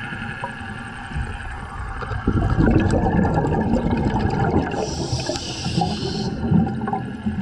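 Underwater bubbling: a stream of air bubbles rising past the camera, a dense crackling gurgle that sets in about two seconds in, over a steady underwater hum.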